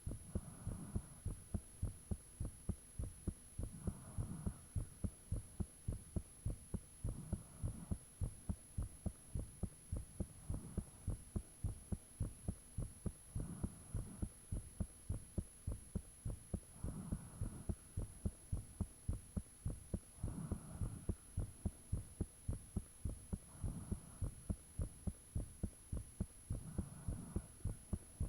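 A human heartbeat heard up close: a steady, even train of low thumps. A soft whooshing swell rises and falls about every three and a half seconds.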